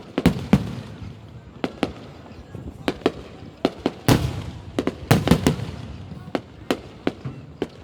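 Fireworks going off: an irregular string of sharp bangs, with louder, ringing bursts near the start and again about four to five seconds in.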